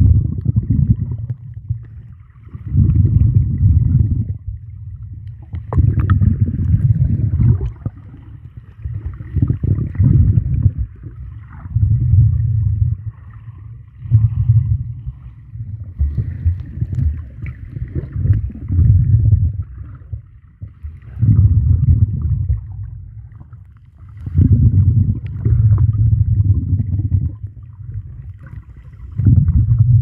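Muffled underwater water noise picked up by a camera while snorkeling: low rumbling surges that come and go every two to three seconds, with quieter gurgling between.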